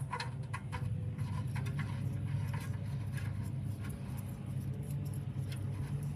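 Small metallic clicks and ticks as a new oxygen sensor is handled and threaded by hand into the exhaust, over a steady low hum.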